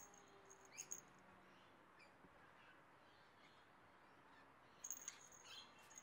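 Small bell on a cat's harness jingling faintly as the cat rolls about, in two brief bursts: about a second in and near the end.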